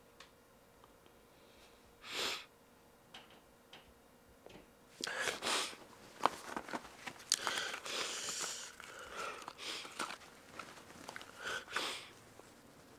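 Quiet room with a man sniffing and breathing, and the rustle of his clothing as he shifts on a sofa, in short soft spells separated by pauses.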